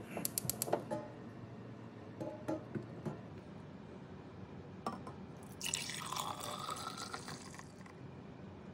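Milk poured from a saucepan into a glass measuring jug: about two seconds of splashing pour, its pitch rising as the jug fills. Before it, a quick run of clicks and knocks, and a few more scattered clicks.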